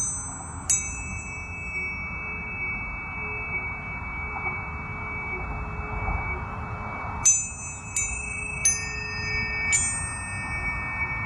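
Planetary tuning forks struck one after another, each strike a bright ping whose high overtones fade quickly, leaving steady pure tones ringing. Two strikes come near the start and four more in quick succession in the last four seconds.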